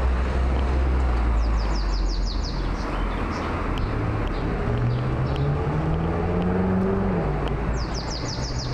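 Street traffic: the steady hum of passing cars, with one engine's tone rising in pitch midway through as a vehicle pulls away. A bird gives a rapid run of short falling chirps about a second and a half in, and again near the end.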